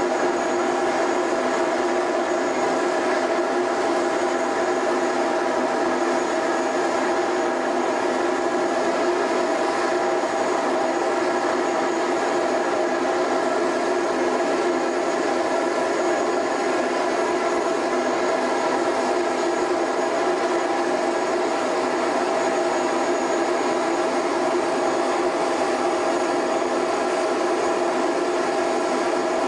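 MAN heavy-haulage tractor unit pulling a loaded multi-axle modular trailer at walking pace: a steady engine and machinery drone with a constant hum, unchanging in pitch and level.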